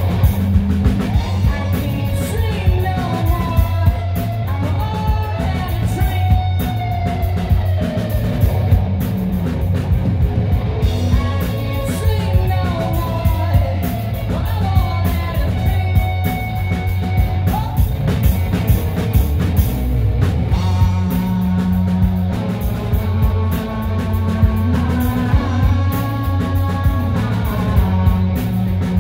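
A rock band playing live, with electric guitars and drums and a male voice singing lead at the microphone.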